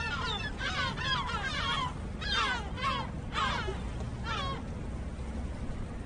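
Gulls giving a rapid run of harsh, falling calls, thick for the first four seconds or so and thinning out after that, over a steady low rumble.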